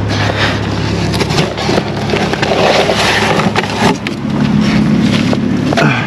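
Rustling and knocking of cardboard boxes and rubber-banded bundles of leafy greens being handled in a car trunk, over a steady low hum.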